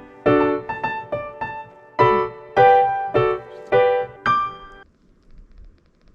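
Background piano music: a short melody of single struck notes, each ringing and fading, that ends about five seconds in.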